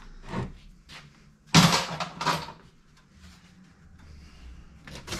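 Clunks and clatter of metal tools and engine parts being handled: a few separate knocks, the loudest about one and a half seconds in and another just after two seconds.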